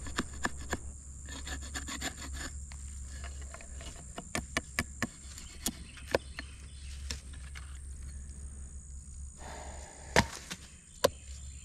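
Fighting-knife blade shaving splinters off a stick of fatwood (resinous pine) braced on a stump: a run of short, dry scrapes and clicks, dense at first, then scattered, with two sharper clicks near the end.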